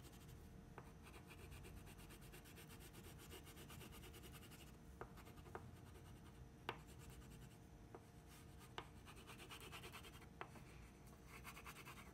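Faint scratchy rubbing of a yellow-green wax crayon shading back and forth on paper, with a few light ticks now and then.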